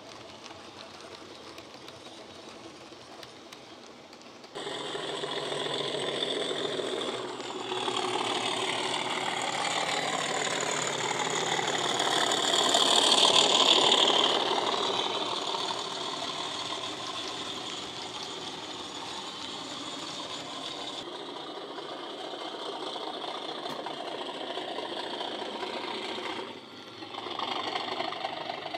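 Model Class 37 diesel locomotive's DCC sound decoder playing an English Electric V12 engine sound through the model's small speaker as it runs. The engine note steps up suddenly a few seconds in, is loudest as the locomotive passes close by, then eases back, with a brief dip near the end.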